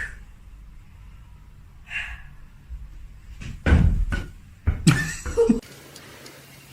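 A cluster of loud thuds and bangs lasting about two seconds, starting past halfway, after two short fainter sounds earlier on.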